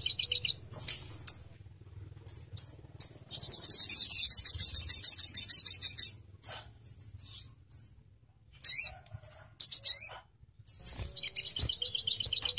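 Sunbird (sogon ontong) singing: rapid, high trills, the longest lasting nearly three seconds from about three seconds in, and another starting near the end, with short chirps and a couple of quick falling notes between.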